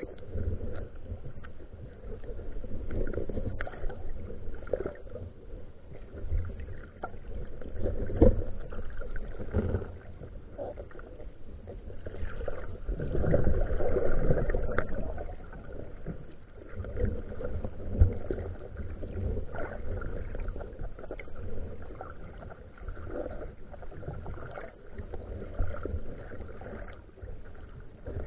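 Muffled water movement heard underwater through a camera housing: an uneven low rumble with scattered knocks, swelling about halfway through.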